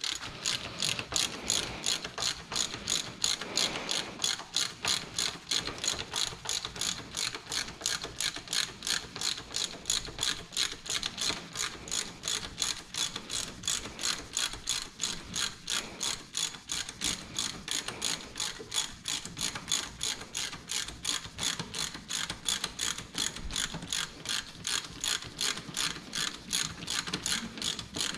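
Hand ratchet wrench clicking steadily, about three to four clicks a second, as a fastener is run in or out on the motorcycle's front end.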